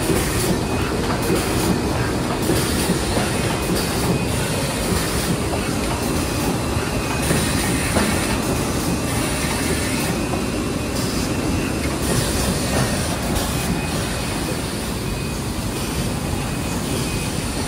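Mini wet-wipe making machine running, a steady mechanical din with fine, dense clattering throughout.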